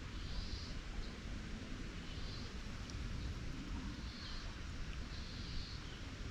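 Faint outdoor background noise: a steady low rumble with a few short, faint high-pitched sounds about a second apart.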